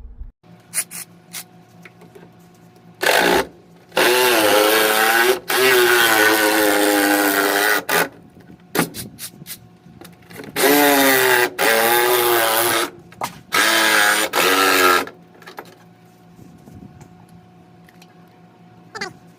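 Power drill running in about seven bursts of one to three seconds, its pitch dipping and recovering under load, with a few light clicks between.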